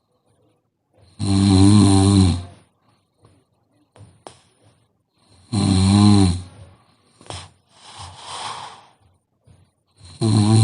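A young woman snoring in deep sleep: three loud, low snores about four seconds apart, each lasting over a second. The last one starts near the end, and a softer breath out comes between the second and third.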